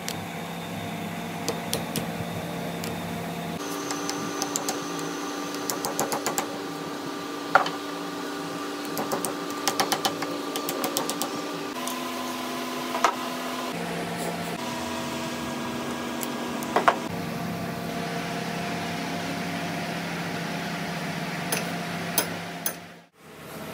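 A workshop machine's electric motor humming steadily, its pitch jumping to a new level several times, with light clicks and taps of tool work over it. It cuts out briefly just before the end.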